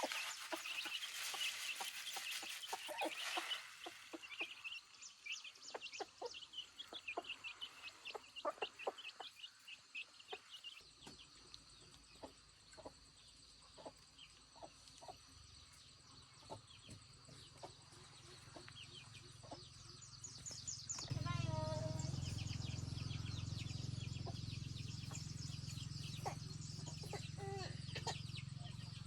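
Chickens clucking and cheeping in many short calls, with a steady low hum starting about two-thirds of the way in.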